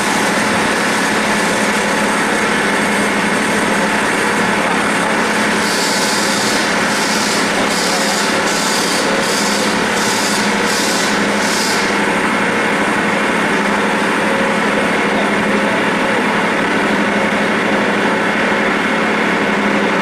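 CNC roll-turning lathe cutting a large metal roll: a steady machine hum with several steady tones, and a run of about ten short hissing pulses, a little under two a second, from about six to twelve seconds in.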